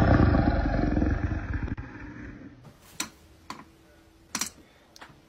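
A loud, low growling roar that dies away about two seconds in, followed by four or five sharp, separate clicks.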